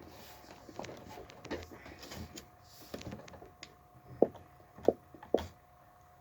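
Someone eating a sandwich close to the microphone: rustling and chewing, then three sharp mouth smacks near the end, over a faint steady hum.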